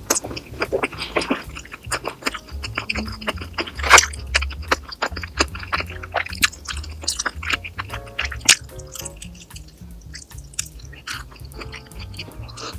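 Close-miked eating sounds: chewing and wet mouth noises with many sharp crunchy clicks, over background music.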